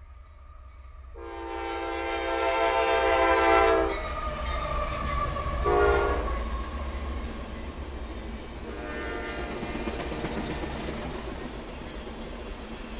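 Diesel freight locomotive's air horn sounding one long blast of about two and a half seconds, then a short blast about two seconds later, as the train approaches. The train then rolls past: the steady rumble and clickety-clack of freight car wheels over the rail joints.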